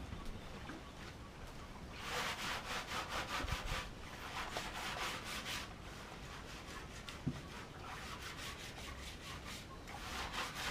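Fast, rhythmic rubbing strokes, about five a second. They start about two seconds in, ease off after about six seconds, and pick up again near the end.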